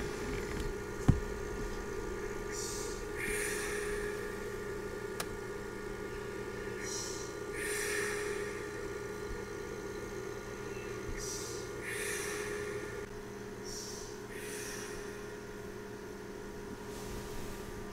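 A person breathing heavily and sniffling close to the microphone, as after crying, one breath about every four seconds, over a steady low hum.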